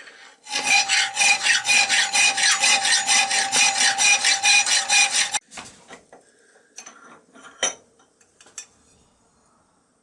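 A hand file rasping back and forth on the metal of the cleaver's handle tang, in quick even strokes of about four a second, with a faint ringing from the metal. The filing stops about five seconds in, followed by a few light clicks and knocks.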